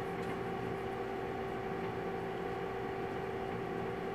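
Steady room hum with a few constant pitched tones running under it and no change in level.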